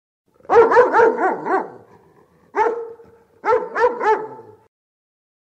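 A dog barking in three quick volleys: about five rapid barks, a single bark, then three or four more.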